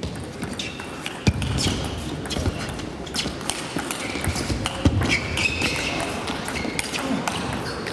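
Table tennis rally: the ball clicking off rackets and table many times in quick succession, with short squeaks of players' shoes on the court floor.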